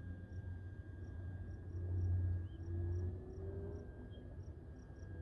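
Faint, steady high-pitched whine of a distant electric radio-controlled model airplane, its pitch wavering slightly as it flies, over scattered short insect chirps.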